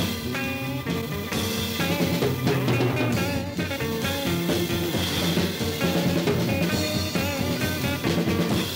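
Heavy metal band playing an instrumental break: a lead electric guitar with bending, wavering notes over bass and a drum kit.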